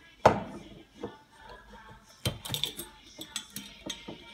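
Bottles clinking and knocking as they are shaken and turned upside down to swirl a little sanitising solution inside them: a string of sharp clinks, busiest about two seconds in.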